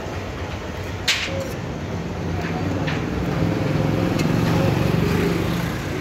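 Street traffic noise with a motor vehicle's engine passing, swelling and fading over a few seconds in the middle. A sharp click comes about a second in, then a few lighter clicks.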